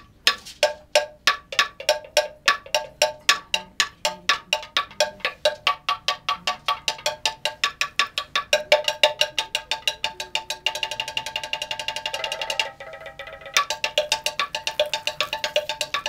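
Hollowed tree-trunk slit drum struck with sticks, giving clear pitched wooden knocks. The beat starts at about three strokes a second and quickens into a fast roll about two-thirds of the way through, breaks off briefly, then picks up again with quick strokes.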